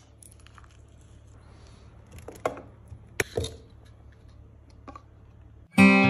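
Clear plastic iced-coffee cups being handled on a granite countertop: a few light knocks and clicks over a low steady hum. Acoustic guitar music starts near the end.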